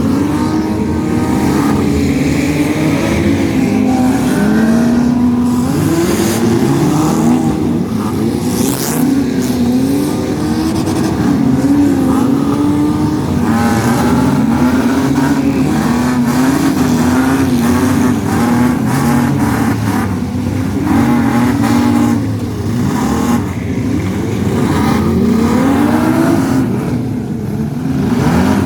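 Demolition derby cars' engines revving, their pitch rising and falling constantly, with scattered short knocks from collisions.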